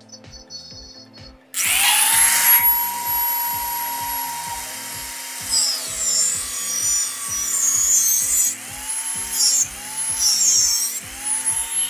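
Angle grinder switched on about a second and a half in, its motor whining up to speed as the disc cuts into a metal motorcycle silencer pipe. The pitch dips and recovers several times as the disc bites. Background music with a steady beat runs underneath.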